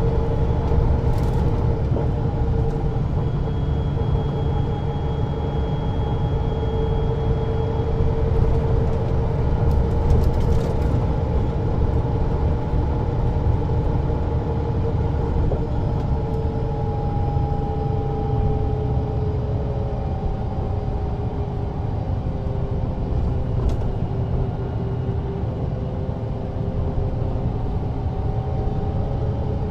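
Mercedes-Benz O407 city bus under way, heard from inside: its six-cylinder diesel engine and ZF Ecomat automatic gearbox run with a steady low rumble and whining tones that drift slowly in pitch with road speed.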